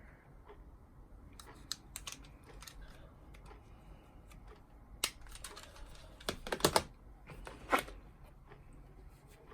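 Hands handling a plastic remote control and its packaging: light rustling with scattered sharp plastic clicks, the loudest a quick cluster about two-thirds of the way through and one more shortly after.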